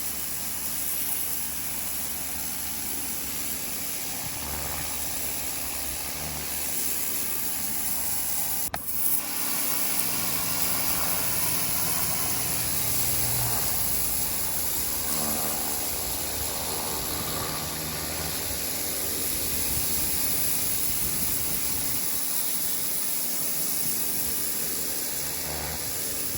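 Ryobi 1600 psi electric pressure washer running, its turbo nozzle spraying a steady hissing jet of water over a motor-pump hum. A sharp click about nine seconds in.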